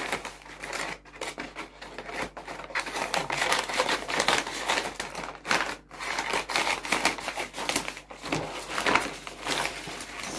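Scissors cutting through a brown kraft-paper mailer bag, the stiff paper crinkling and crackling as it is snipped and handled. The sound is a dense, irregular run of sharp snips and crackles, and near the end the cut bag is pulled open with more rustling.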